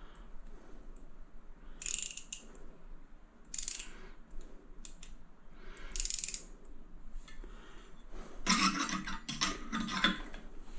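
Screws being driven by hand to fix a toilet roll holder's wall mount, with a tool working in three short bursts and then a longer run near the end.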